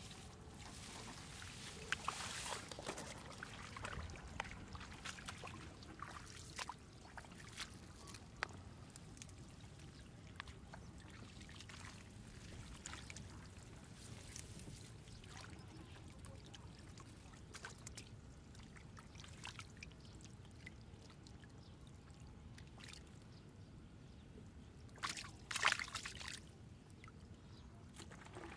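Shallow water splashing and trickling, with scattered small splashes and knocks and a louder burst of splashing about 25 seconds in.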